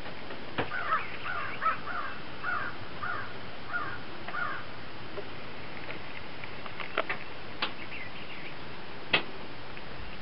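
A crow cawing in a quick series of about eight harsh calls over the first few seconds, followed later by a few sharp clicks, over a steady hiss.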